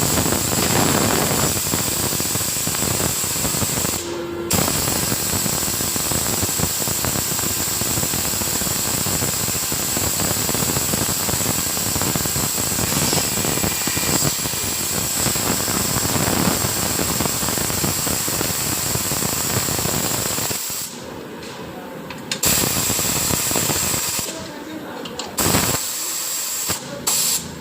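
Loud, steady hiss like compressed air from an air tool, running for about twenty seconds with a brief break about four seconds in, then in shorter bursts near the end.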